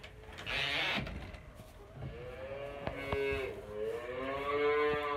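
A cow mooing: one long, wavering moo starting about two seconds in.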